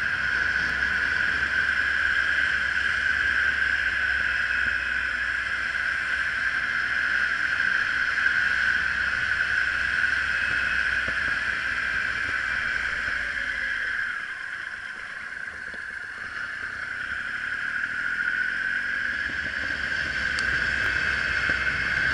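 Triumph Tiger Explorer three-cylinder motorcycle running along a lane, engine and wind noise heard through a handlebar-mounted camera. It eases off about fourteen seconds in and builds up again a few seconds later as the bike accelerates.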